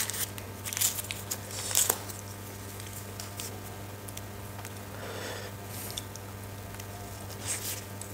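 Paper wrapper being torn and crinkled off an egg roll, with a few sharp rips in the first two seconds and another near the end, and soft chewing in between. A steady low hum runs underneath.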